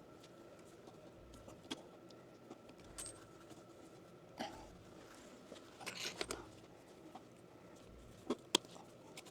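Scattered small clicks, taps and brief rustles of plumbing parts and hand tools being handled, the sharpest two knocks a little after eight seconds, over a faint steady high hum.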